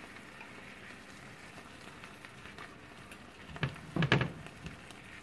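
Corn, peppers and onions sizzling in a skillet with a steady faint hiss, then a spatula stirring and scraping against the pan in a few quick strokes about three and a half seconds in.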